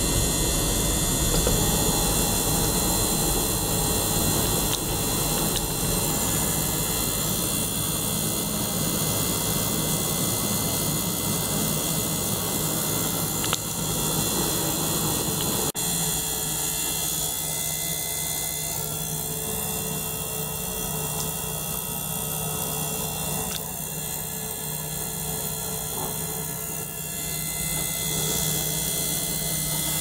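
Small motor-driven circulation pump and ultrasonic cleaner running together: a steady mechanical whir and hum as the pump circulates water through tubes into a glass jar in the cleaner's tank. A sharp click comes about halfway through, after which the sound is a little quieter.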